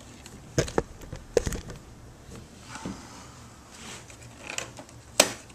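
Handling clicks and knocks from a Shackman 102 camera body as it is closed up and picked up: two pairs of sharp knocks in the first second and a half, a few softer taps, and the loudest single click near the end.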